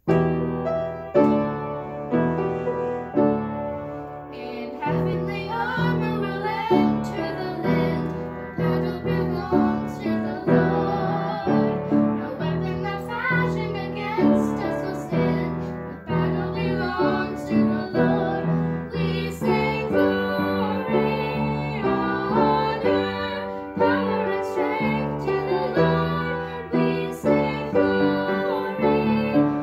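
Upright piano playing a gospel song, a short piano introduction first, then two young girls singing together over the piano from about four seconds in.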